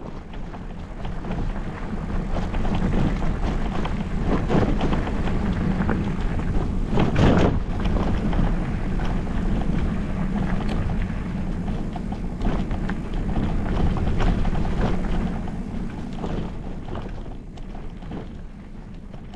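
Wind buffeting a handlebar-mounted camera's microphone as a loaded bikepacking bike rolls along a dirt trail, with tyre crunch and rattles over bumps and a louder knock about seven seconds in. The noise eases off near the end.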